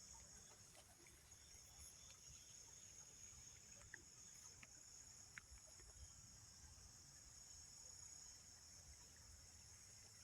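Faint, steady high-pitched drone of an insect chorus, with a soft low rumble beneath it.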